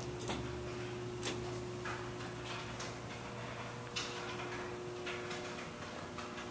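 Irregular light clicks and taps, about eight of them and unevenly spaced, over a steady low electrical hum.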